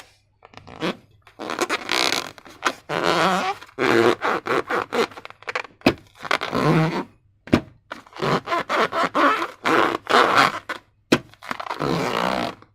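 Wet slime squelching and rubber balloon squeaking in irregular bursts as slime is squeezed and worked in balloons, with a few sharp clicks.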